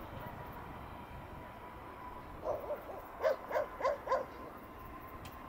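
A run of about five short animal calls in quick succession, about halfway through, over a faint steady hum.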